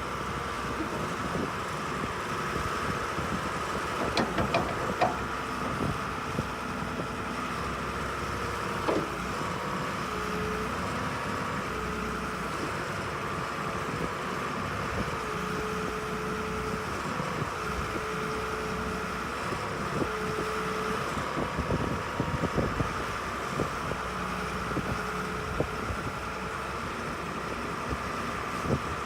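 Badger 1085C CruzAir excavator's diesel engine running steadily, with a few short knocks.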